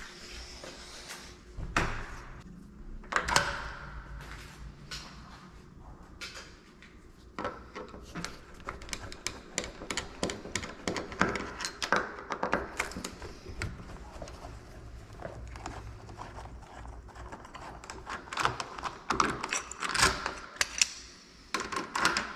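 Kwikset SmartKey door lock being worked by hand during a rekey: quick metallic clicks, taps and key rattles from the cylinder and lock hardware, coming thicker in the second half.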